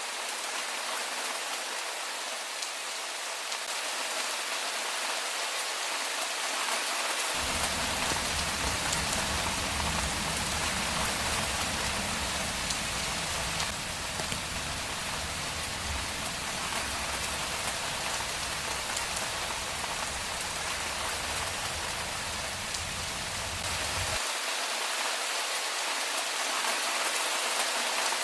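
Steady rain pattering on a surface, an even hiss. A low rumble sits underneath from about seven seconds in, stopping abruptly near the end.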